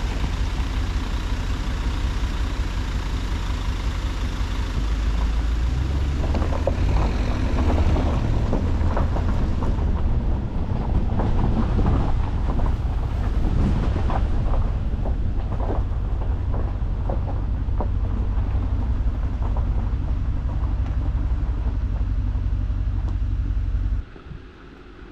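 Vehicle driving along a rough unsurfaced track: a steady low rumble with scattered knocks and rattles, cutting off abruptly near the end.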